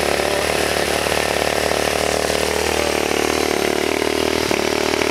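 Monkey bike's high-compression single-cylinder engine running steadily at idle, its pitch sagging slightly about three seconds in.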